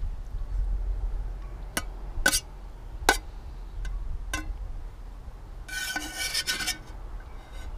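Metal camping spoon clinking and scraping inside an aluminium camping pan while scooping out the last of the food: a handful of sharp clinks, then a longer scrape about six seconds in.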